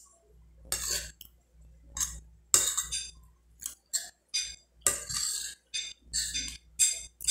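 Metal spoon scraping and clinking against a glass plate while scooping rice, beans and stew, in a string of short, irregular scrapes and clicks.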